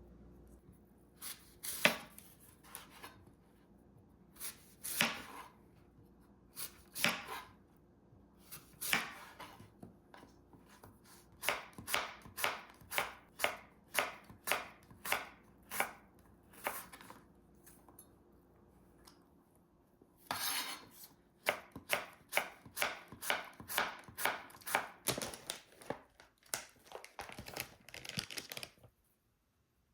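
Kitchen knife chopping food on a cutting board. A few separate cuts a second or two apart, then a steady run of about two chops a second. After a pause, a faster run of chopping stops near the end.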